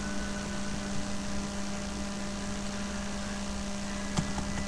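Steady low electrical hum with background hiss, and a single sharp click about four seconds in.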